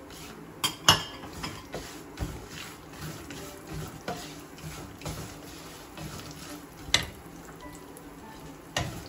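Spoon stirring nuts in ghee in a pan, clinking against the pan a few times, the sharpest clinks about a second in and again about seven seconds in.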